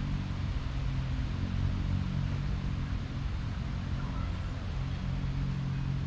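A steady low engine-like hum with a constant hiss over it.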